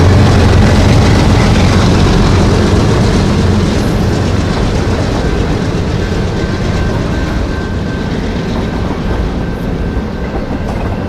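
Canadian National freight train rolling past, with steady wheel-on-rail noise and the low hum of its diesel locomotives, growing gradually quieter as the train goes by. A faint thin whine joins in the second half.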